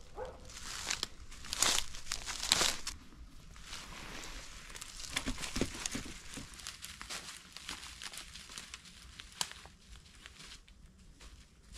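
Footsteps crunching and rustling through undergrowth, loudest in the first three seconds, then fainter with scattered crackles.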